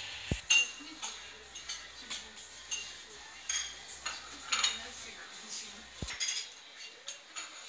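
Cutlery, dishes and glasses clinking in a café: an irregular string of light clinks and clatters, some with a short ringing tone.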